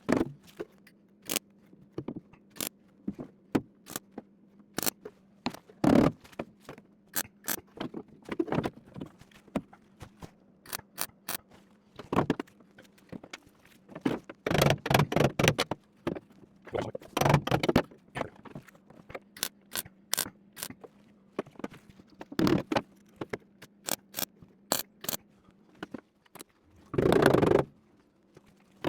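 Hand work on a steel body panel: scattered taps, knocks, clicks and scrapes of sheet metal and tools being handled, in short clusters, over a faint steady hum.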